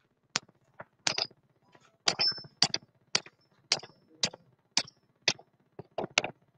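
Hammer tapping on a steel lugless joining shackle, a dozen or more sharp metal-on-metal strikes at an uneven pace of about two a second, some ringing briefly. The hammer is driving the shackle's stud in to bring the pin holes into line.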